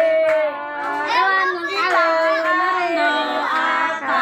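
Children singing a song with music, in long held notes that slide in pitch.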